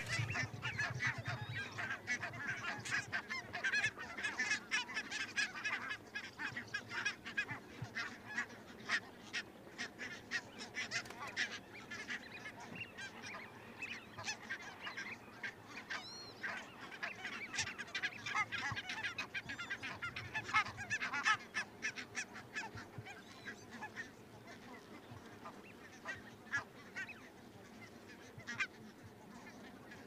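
A flock of geese calling continuously, many overlapping calls that start abruptly and grow sparser toward the end.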